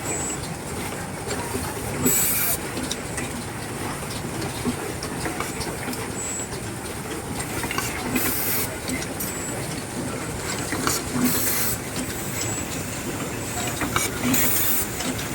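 Automatic microphone-wire soldering machine at work: short hisses every few seconds, small clicks and brief high beeps over a steady machine noise.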